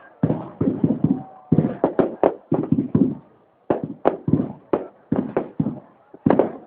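Fireworks display: aerial shells bursting in quick, irregular succession, each bang trailing off in a short rumble, with a brief lull about halfway through.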